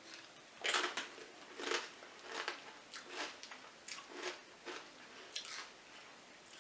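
A person biting into a chip dipped in salsa and chewing it. There is one loud crunch under a second in, followed by a run of softer chewing crunches about one or two a second.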